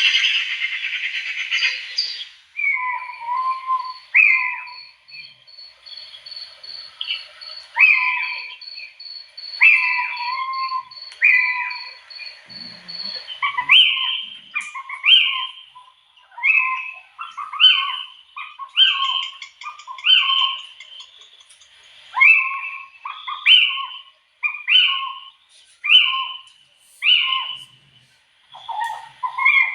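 Birds calling, with short calls repeated about once a second throughout. A fast, even series of high pips runs through the first half, and a dense high chatter stops about two seconds in.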